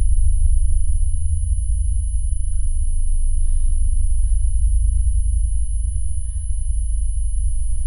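A steady deep low rumble. From about halfway in, faint soft sounds come roughly once a second over it.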